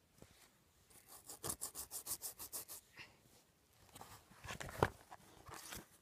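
Fingers rubbing quickly back and forth over the fuzzy bib patch of a touch-and-feel board book, a rapid scratchy rubbing of about eight strokes a second for nearly two seconds. Near the end the stiff board page is handled and turned, with a short knock.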